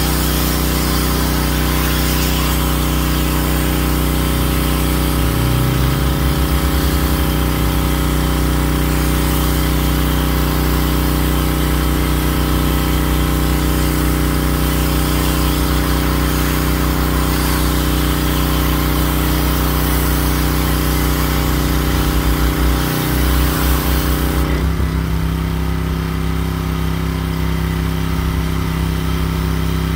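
Gas pressure washer running steadily, its spray hissing from the wand onto concrete. About three-quarters of the way through, the spray cuts off when the trigger is let go, while the engine keeps running.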